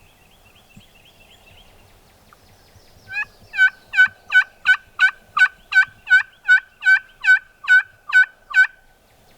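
A series of about fourteen turkey yelps, evenly spaced at a little over two a second. It starts about three seconds in and lasts about six seconds, with faint small-bird chirps before it.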